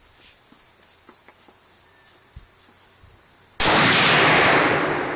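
A single shot from a Thompson/Center Venture bolt-action rifle chambered in .300 Winchester Magnum. It goes off suddenly about three and a half seconds in and dies away over the next second or so.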